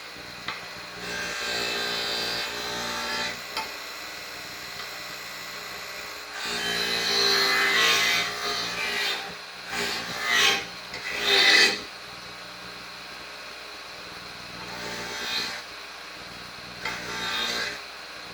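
Rusty steel pliers pressed against a spinning wire wheel: a steady motor hum with spells of harsh rasping scrubbing each time the pliers meet the wires, loudest from about six to twelve seconds in, stripping off the rust.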